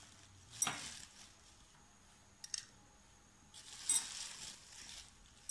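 Gram flour being spooned into a plastic bowl: a soft click a little over half a second in, faint ticks around two and a half seconds, and a short scraping rustle with a click about four seconds in.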